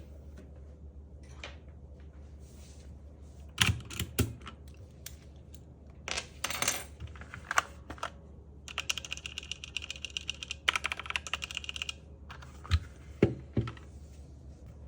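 Keys of a Zifriend KA646 mechanical keyboard clicking: scattered single keystrokes, a quick run of typing in the middle, and a few heavier knocks near the end.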